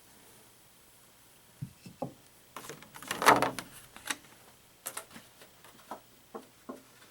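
Unboxing packaging being handled: scattered knocks and clicks, with a louder scraping rustle about three seconds in.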